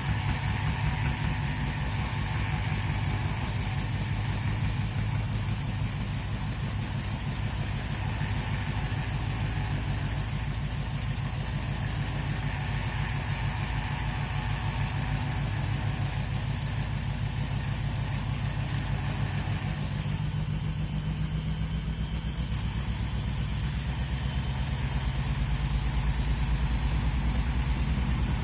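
Front-loading washing machine running through its wash, a steady low motor hum with the drum turning; the low hum grows a little louder over the last few seconds.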